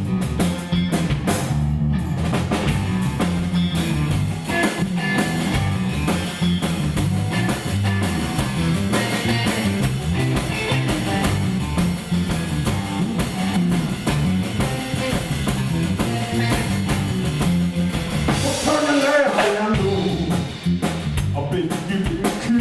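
Live blues band playing an instrumental passage between verses, with drum kit and guitar over a steady bass rhythm.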